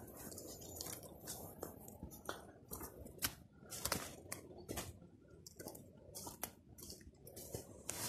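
Rustling and irregular crackling snaps of leaves and dry stems brushed and broken by someone pushing on foot through dense scrub, with footsteps.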